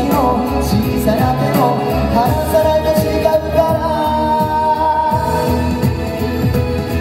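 A male vocal group singing a Japanese pop song, sung live into handheld microphones and played through small portable amplifiers, over a backing with a steady beat.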